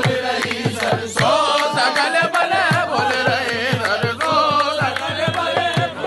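Devotional group singing with wavering, ornamented voices over a hand drum beating steadily about three times a second.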